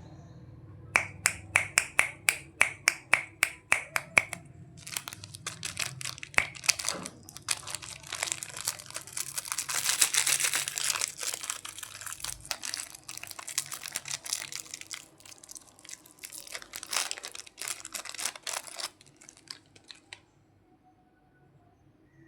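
A quick run of sharp clicks, about four a second, for about three seconds, then plastic candy packaging crinkling and rustling as it is handled and opened, loudest midway, stopping shortly before the end.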